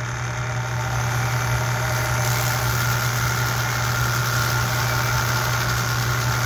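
Motor-driven sanding drum running with a steady hum, while a cordless drill spins a copper rivet against the abrasive; about two seconds in, a steady sanding hiss sets in as the rivet head is deburred.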